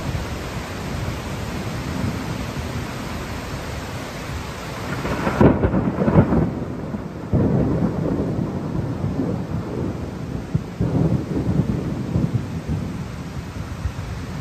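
Torrential rain pouring down steadily. About five seconds in a loud, deep rumble swells up, and it comes back in waves later on.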